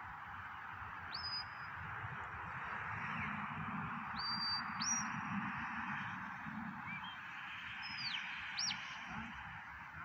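A shepherd's whistle giving commands to a working sheepdog: about five short high whistled notes, each sliding up and holding or curving down. Steady wind noise on the microphone runs underneath.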